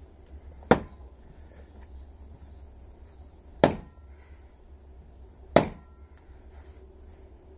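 An axe chopping into a log on a wooden chopping block: three sharp, loud chops about two to three seconds apart. The blade sticks in the log, which is hard to split and "fighting back".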